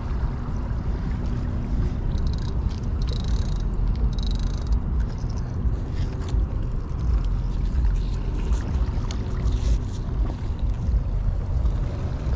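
Steady low rumble of wind on the microphone. About two to five seconds in comes a run of short clicks and rustles as the freshly landed spotfin croaker is handled and unhooked.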